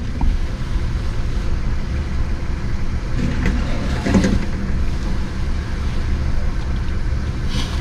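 Pickup truck engine idling steadily, a low hum heard from inside the cab.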